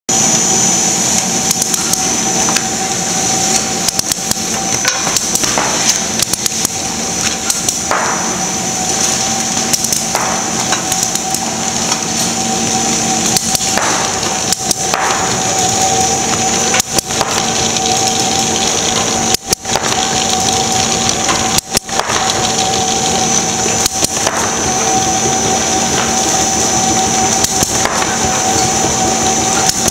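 Express envelope making machine running: a steady hum and a high whine from its drive, overlaid with frequent irregular clicks and clatters from the conveyor, rollers and glue applicator as envelopes pass through.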